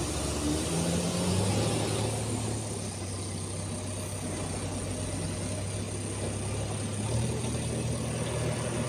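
Heavy diesel engine running steadily at a low, even note that rises slightly about seven seconds in.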